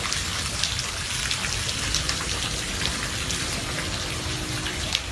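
Steady rain falling, with individual drops ticking sharply here and there over the even hiss.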